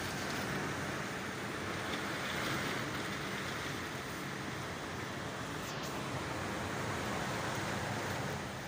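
Heavy typhoon rain and wind, a steady rushing noise.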